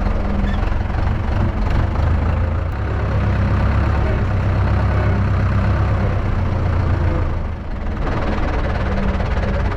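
Zetor tractor's diesel engine running at low speed with a steady low throb. It grows louder about three seconds in and dips briefly near the end.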